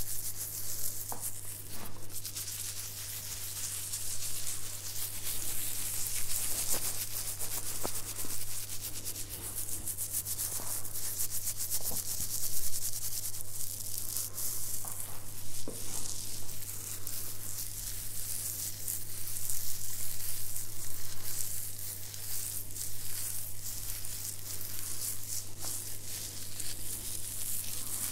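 Fingers scratching and rubbing through a short beard right at the microphone. It is a dense, scratchy rustle that swells and fades in waves, over a steady low hum.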